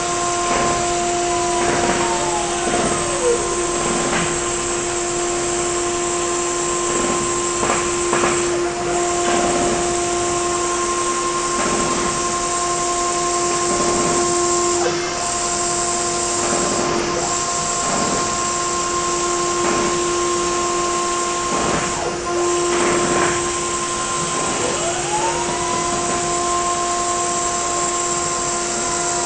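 Multicam 304 M Series CNC router's spindle running with a steady whine while the bit cuts a clear plastic sheet, the cutting noise coming and going. One tone glides down about a second in and rises again near the end, then falls once more.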